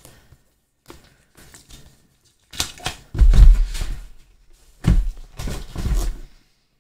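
A product box being handled and opened: scraping and rustling in several bursts, with dull thumps against the desk, the heaviest about three seconds in.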